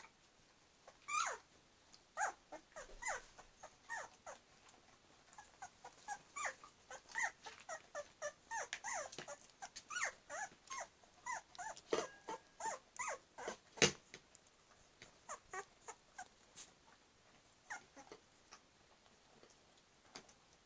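Two-week-old springer spaniel puppies whimpering and squeaking in a long string of short, high, falling cries, busiest in the middle and thinning out near the end.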